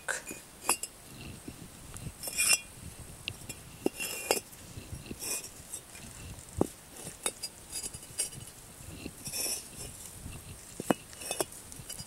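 Refractory firebricks being dry-laid, brick set against brick on aerated concrete blocks: a run of sharp clinks and knocks, with a few short scrapes as bricks are slid into place.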